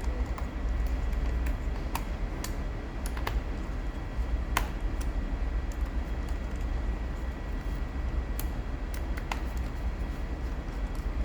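Scattered light clicks and taps, irregular and a second or more apart, over a steady low hum.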